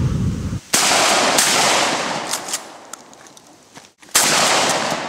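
Two 12-gauge pump-action shotgun shots about three and a half seconds apart, each echoing away over a second or two. A few short clacks fall between the shots as the pump action is worked.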